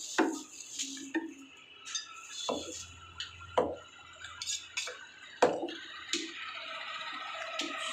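Butcher's cleaver chopping mutton on a wooden chopping block: a series of sharp chops at uneven intervals, the loudest about five and a half seconds in.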